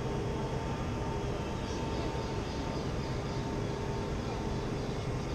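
Steady city-square background noise: a low rumble with a constant machine hum.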